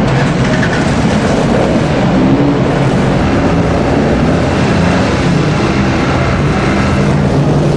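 A vehicle engine running steadily, a low even hum under a dense wash of background noise.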